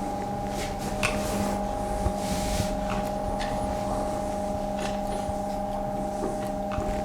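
Rustling and small knocks of a camera being handled and repositioned by hand after its tripod broke, over a steady electrical hum with a second tone joining about a second in.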